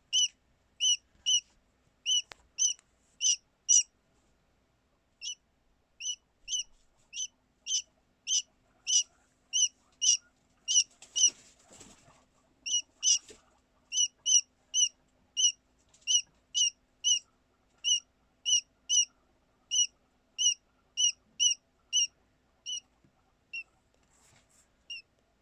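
Lone newly hatched quail chick peeping: short, high calls at about two a second, with a brief pause early on and fewer near the end. This is the loud calling of a chick kept without other chicks.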